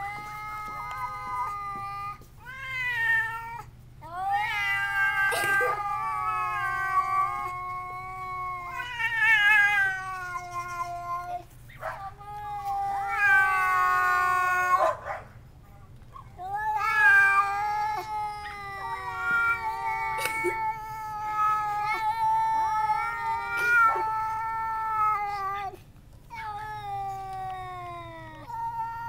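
Two cats caterwauling at each other in a territorial standoff, a resident cat riled by a visiting one. Long, wavering yowls of several seconds each rise and fall in pitch, one after another with short breaks.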